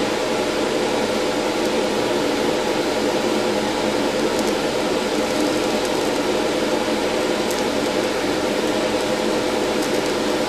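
TIG welding arc from a PrimeWeld TIG225X on quarter-inch stainless steel: a steady hiss with a constant hum running under it, unbroken while the torch holds the arc on the joint.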